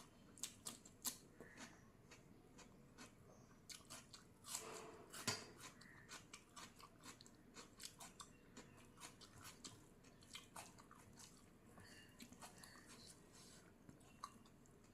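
Close-up mouth sounds of a person eating rice and egg curry with raw onion and cucumber: chewing with wet smacks and occasional crisp crunches, in irregular short clicks several times a second.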